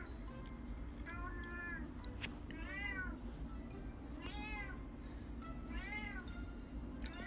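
Domestic cat meowing repeatedly: about five short meows, each rising then falling in pitch, spaced about a second and a half apart.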